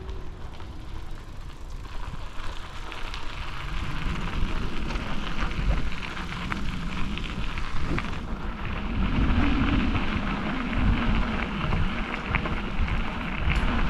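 Bicycle riding along a path: tyres rolling with a steady crackling noise that grows louder about four seconds in, and wind rumbling on the microphone, heavier from about nine seconds in.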